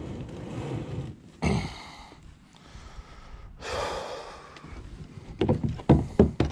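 A person breathing hard while getting seated in a plastic sit-on-top kayak, with two long heavy exhales. Near the end come several loud, quick knocks on the hollow hull.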